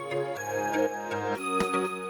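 Background music: a melodic electronic track with a steady bass line and a light beat that comes in about a second and a half in.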